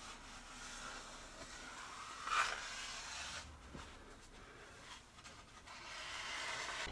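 Paper towel rubbing and wiping along the plastic rim of a sump basin, cleaning up fresh clear silicone caulk. It is faint, with one louder swipe about two seconds in.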